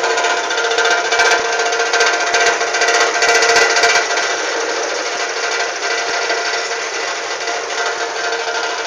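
A river ferry's engine running with a loud, rapid mechanical clatter, a little louder over the first few seconds and then easing slightly as the ferry pulls away from the landing.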